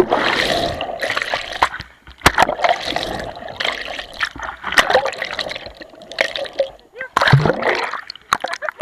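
Seawater splashing and churning around a camera under the surface, coming in irregular surges with many sharp splashes and short lulls between them.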